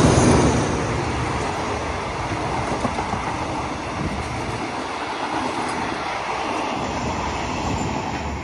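Alsthom diesel-electric locomotive 4153 passing close by, loudest at the start. It is followed by the steady noise of its passenger coaches' wheels running on the rails as the train goes past.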